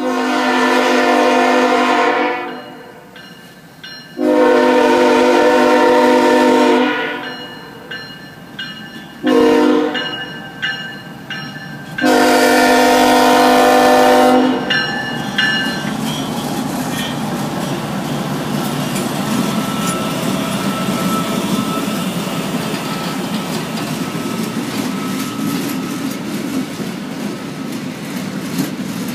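Norfolk Southern freight train's diesel locomotive horn sounding the grade-crossing signal: two long blasts, a short one, then a long one. After that, a steady rumble of the locomotives and wheels on the rails as the train passes.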